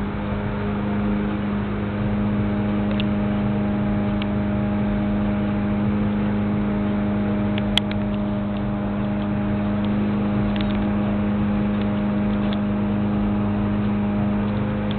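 A steady low mechanical hum with a few faint ticks and one sharp click about eight seconds in.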